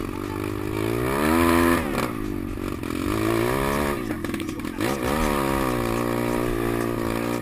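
150 cc pit bike engine under way, its pitch rising and falling about three times as the throttle is opened and closed, then holding steadier near the end.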